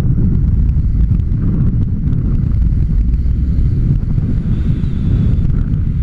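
Wind buffeting an action camera's microphone as a tandem paraglider flies: a loud, steady low rumble of rushing air.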